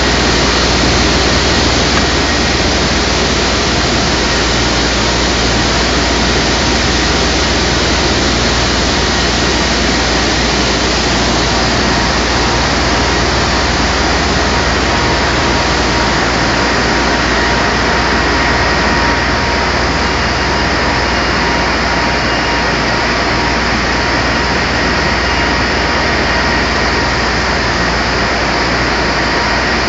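Loud, steady noise of running industrial machinery: an even rush with faint steady whines in it.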